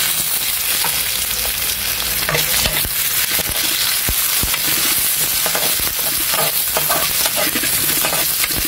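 Onion, garlic and ginger sizzling in hot oil in a metal wok, with a steady hiss, while a spatula stirs them and clicks and scrapes against the pan.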